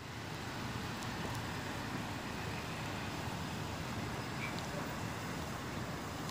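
Steady outdoor background noise: an even hiss with no distinct events, only a few faint ticks.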